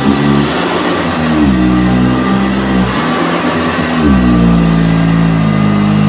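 Eureka commercial upright vacuum cleaner (7.0 amp) running on medium-pile carpet. Its motor pitch dips and recovers every second or two as the head is pushed and pulled and sucks down onto the carpet, which slows the motor a little.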